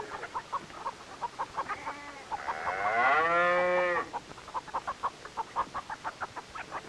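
Chickens clucking in a steady run of short notes, and a cow mooing once, a long arched call starting about two and a half seconds in and lasting under two seconds; the moo is the loudest sound.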